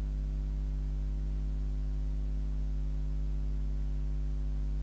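Steady electrical mains hum with its overtones, constant and unchanging, with no other sound.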